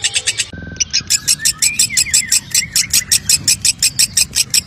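Fischer's lovebird giving its long chattering song (ngekek): a fast, high-pitched run of short harsh notes, about eight to ten a second, broken off briefly just under a second in before it runs on.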